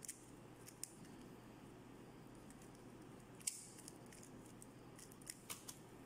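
Plastic clicks of a 3x3 Rubik's cube being turned one-handed: scattered sharp clicks, the loudest about three and a half seconds in and a quick cluster near the end, over a faint steady hum.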